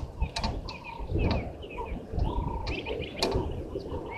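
Birds calling in the bush: repeated short chirps and a lower cooing call, over an uneven low rumble with a few sharp clicks.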